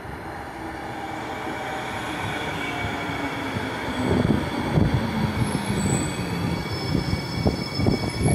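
NJ Transit light rail train pulling into the station and passing close by. A rumble that grows steadily louder, with a thin high whine over it and a thick clatter of wheels on the rails from about four seconds in as the cars draw alongside.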